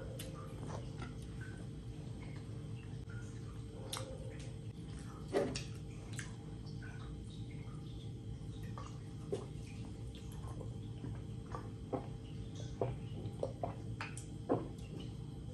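Wet mouth sounds of eating a handful of rice and curry, then swallowing gulps while drinking from a soda can: scattered short wet clicks and smacks, more often near the end, over a steady low hum.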